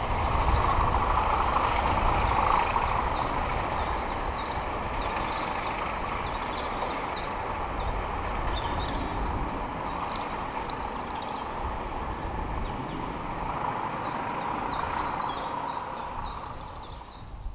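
Diesel-hauled heritage train running, a steady engine and wheel rumble that is loudest in the first few seconds and then eases to a steady level. Rows of quick high chirping ticks sound over it in two stretches.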